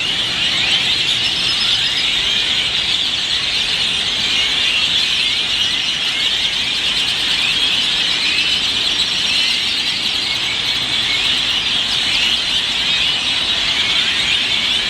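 A large flock of birds roosting in trees, all calling at once: a dense, steady chorus of many overlapping high squeaky calls, plain noisy.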